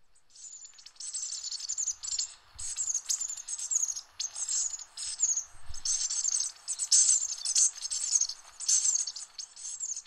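Bushtits calling: rapid, high-pitched twittering chips that overlap densely.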